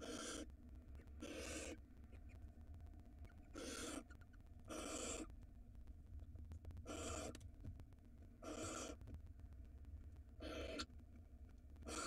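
Barn owl giving a string of short, raspy hissing calls, about seven within a dozen seconds, each under half a second long and spaced a second or two apart.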